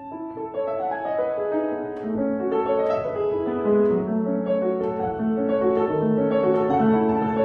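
Grand piano being played: a continuous flowing passage with several notes sounding at once.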